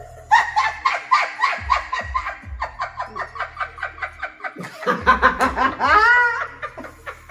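A person laughing in rapid bursts, about five or six a second, then a longer pitched vocal sound that rises and levels off about five seconds in.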